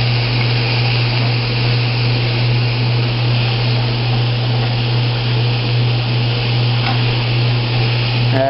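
Steady hum of a running kitchen appliance motor over the even hiss of bacon frying in a pan.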